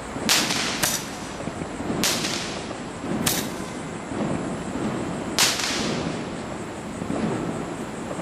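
40-shot consumer fireworks cake firing its shots: five sharp cracks at uneven gaps, with duller low thumps between them.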